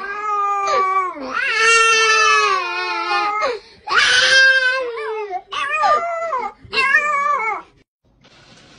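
Baby crying hard in about five long wails, the last cutting off shortly before the end.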